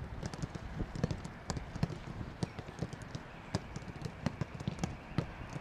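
Footballs being kicked during a training session: many irregular sharp knocks and thuds, some near and some distant, over a low outdoor rumble.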